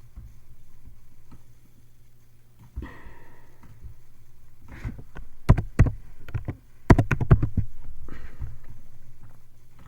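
A few sharp knocks and clicks in two quick clusters, one about halfway through and another a second later, over faint room hiss, with a short breath-like noise near the start.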